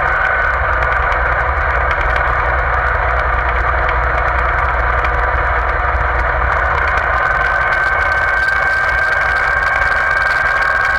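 Tractor engine running steadily as the tractor drives along the road, heard close from a camera mounted on it: a constant low engine drone with a steady high whine over it.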